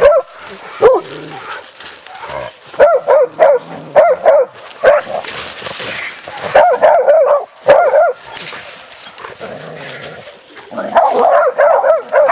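Young bay dogs barking at a wild boar held at bay. The barks come in bursts of a few with short gaps, then turn into a fast, nearly continuous run near the end.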